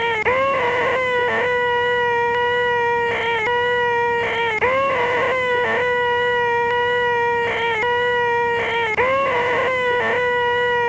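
A man's loud, nasal, high-pitched sustained screech, the 'most annoying sound in the world', looped so that it never stops, repeating about every four and a half seconds.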